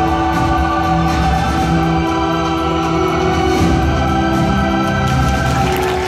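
Orchestral show music with long held notes at a steady, loud level.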